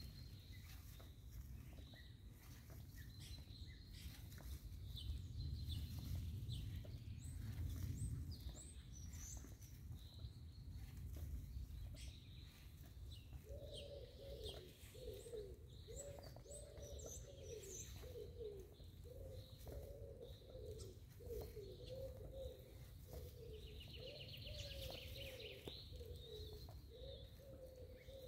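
Small birds chirping with short high calls over a low rumble of wind. From about halfway a dove coos over and over, and near the end a bird gives a quick high trill.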